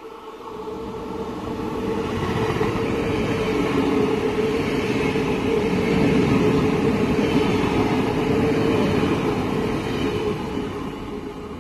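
NS double-deck electric train passing along the platform, its wheels running on the rails with a steady hum. The sound swells over the first few seconds, holds through the middle and fades toward the end.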